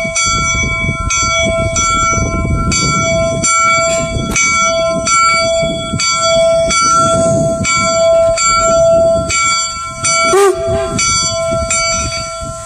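Bell of the Union Pacific No. 119, a Rogers-built 4-4-0 steam locomotive, ringing steadily at about one and a half strokes a second as the locomotive rolls slowly along the rails with a low rumble. About ten seconds in, a short wavering pitched sound briefly cuts in over the bell.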